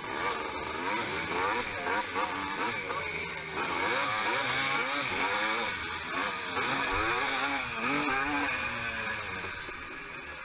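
Motocross dirt bikes racing, the nearest bike's engine revving up and dropping back over and over as the rider works the throttle and gears through the corners, with other bikes close by.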